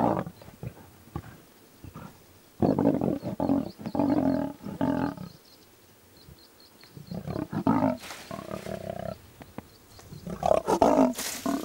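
Lioness growling and snarling in several loud bouts, with a couple of harsher hissing bursts, in angry reaction to being hit by a tranquilliser dart. A sudden sharp sound comes at the very start.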